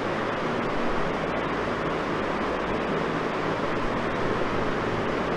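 Steady background noise, an even hiss with a faint low hum underneath.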